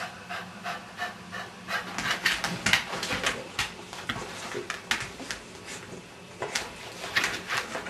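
A cocker spaniel moving about, with short, irregular scratchy and rubbing noises several times a second.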